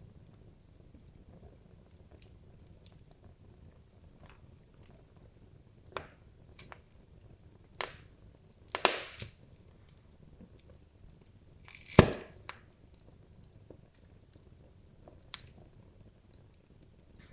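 Wood logs burning in a fireplace, crackling with irregular sharp pops over a low steady hiss of the flames; the loudest pop comes about twelve seconds in, with a cluster of cracks around eight to nine seconds.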